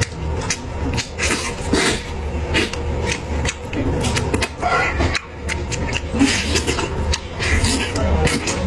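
Close-up eating sounds of a man biting, chewing and sucking meat off a saucy braised goat leg: wet, irregular smacks and slurps, several a second.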